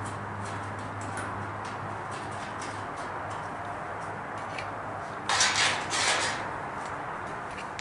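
A low steady hum with a few light clicks, then two short swishing strokes about five and six seconds in as a hand works over the welded sheet-metal patch on a pickup truck's roof.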